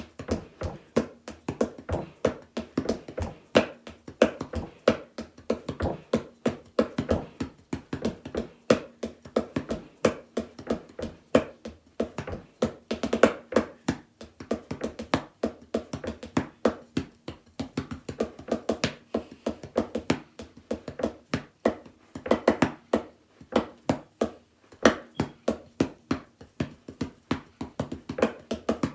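Drumsticks playing a steady drum-kit groove on an old chair, a practice stand-in for a drum kit. Sharp clicks come from sticks on the chair's top rail, played as the hi-hat part, and duller thuds from a pillow on the seat, played as the snare.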